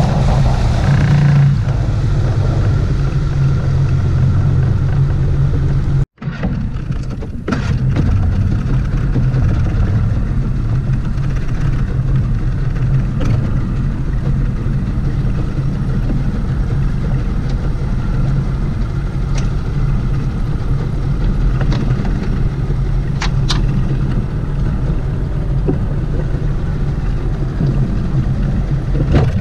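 Outboard motor of a 2002 Carolina Skiff running steadily. About six seconds in the sound breaks off sharply for an instant, and then the motor runs on at a steady pitch with a few faint knocks.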